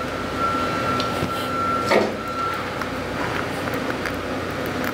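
Small metal clicks and a clunk about two seconds in as needle roller bearings are handled and slid onto a motorcycle transmission main shaft, over a steady background hum with a thin steady tone that stops partway through.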